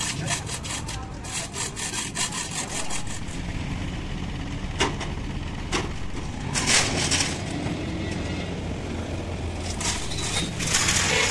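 Hand chain hoist clicking and rattling in several spells as its hand chain is pulled to move a heavy truck axle housing, over a small engine running at a steady low drone.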